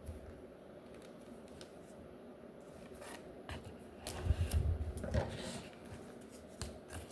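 Comic books in plastic sleeves being handled and sorted: crinkling, sliding and light clicks, with a few soft thumps about four to five seconds in.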